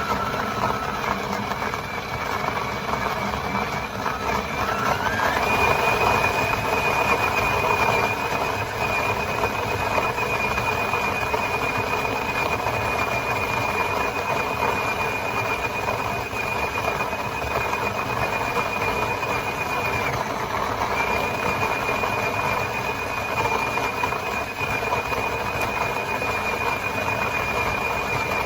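A machine running steadily with a high whine over a rough whirring noise. The whine rises in pitch about five seconds in and drops out for a moment about twenty seconds in.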